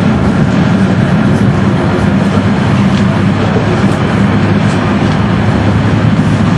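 Prague streetcar running along its tracks, heard on board: a loud, steady rumble of wheels and running gear on the rails, with a few faint clicks.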